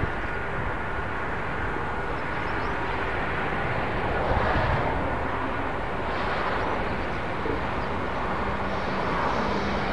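Airbus A220 airliner's turbofan jet engines running at low power as it taxis on the ground, a steady even noise.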